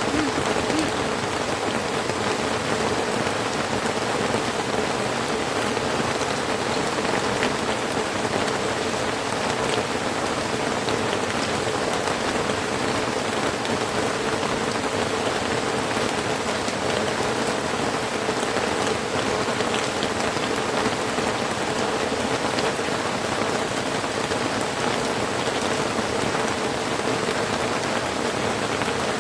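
Heavy rain falling steadily on a small hut, an even, unbroken rush.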